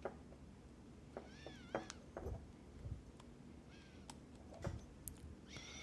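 A cat meowing faintly a few times with short rising-and-falling calls. Small scattered clicks and taps of lock picks working a pin-tumbler lock are heard alongside.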